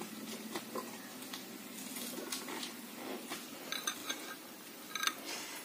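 Metal spoon clinking and scraping in a glass bowl of coffee face pack, with faint scattered clicks and a few brief ringing clinks about four and five seconds in.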